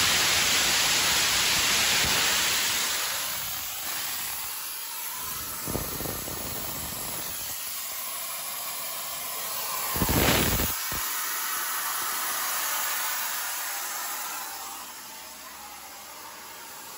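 Compressed air hissing out of the bottom drain tap of a compressor air tank made from an old gas bottle, blowing out condensation. The hiss is loudest at first and eases off, with two short louder spurts about six and ten seconds in, then dies down near the end.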